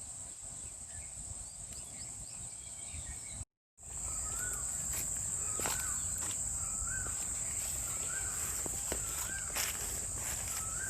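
Outdoor ambience: a steady high-pitched insect drone, and after a brief break to silence about three and a half seconds in, a short rising-and-falling bird call repeating about once a second.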